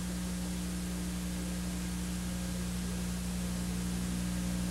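Steady electrical hum with a few low tones, under an even hiss: an audio dropout in an old videotape transfer, with the broadcast sound gone and only line noise left.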